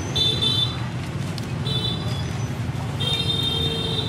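Steady street-traffic hum with a vehicle horn beeping three times: briefly at the start, again around two seconds in, and a longer toot near the end.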